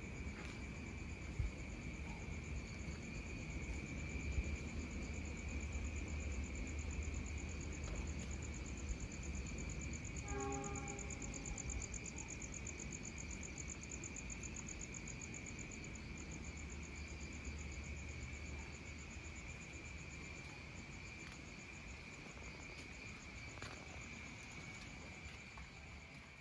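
Crickets and other night insects trill steadily in a high, rapidly pulsing chorus over a low rumble. A short pitched tone sounds about ten seconds in, and everything fades out at the end.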